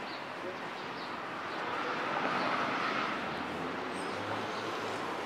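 Street traffic noise, a steady hum of vehicles with one passing by and swelling a little louder about two seconds in.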